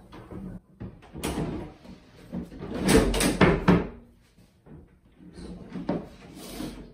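IKEA kitchen cabinet drawer being slid and a drawer front fitted against the cabinet: scraping, bumping and clacking of the drawer parts, loudest as a cluster of sharp clacks about three seconds in, with a further knock near the end.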